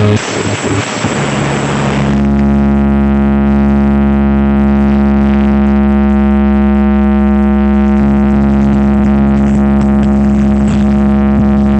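Loud music from a large carnival sound system. About two seconds in it changes to a steady, held droning tone over heavy bass.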